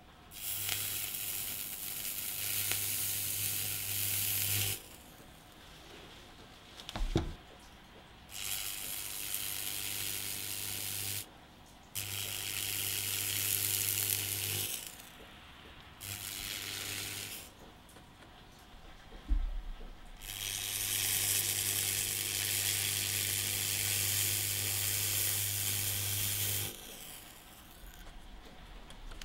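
An electrolytic weld cleaner (STAHLWERK SRG-300 Pro) brush wand sizzling and hissing against a steel weld seam as it strips heat tint, in five bursts of a few seconds each, each carrying a low hum. Two short knocks fall in the gaps between bursts.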